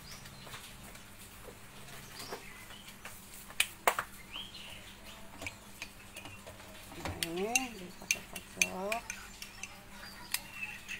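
Metal spoon clicking and scraping against a small bowl while stirring cornstarch into water, in scattered sharp ticks. About seven and eight and a half seconds in, a voice makes two short sounds that rise and fall in pitch.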